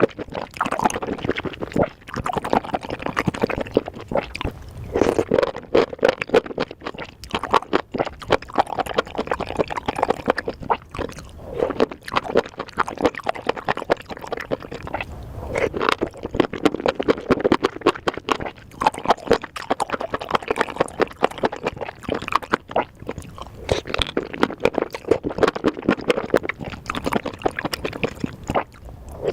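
Close-miked wet chewing and slurping of juicy spicy mushrooms, a continuous run of squelchy, clicking mouth sounds.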